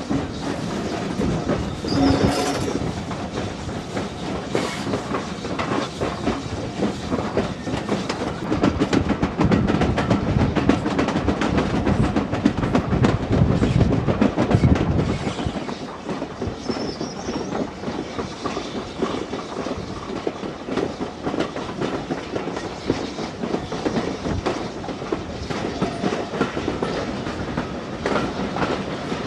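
Steam locomotive running, heard from the side of its cab, with wheels clattering over rail joints and the steady noise of the moving train.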